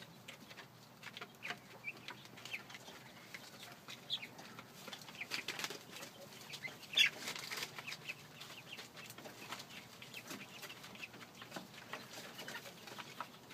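A flock of young Red Ranger chickens making scattered short calls and clucks, with one louder call about halfway through.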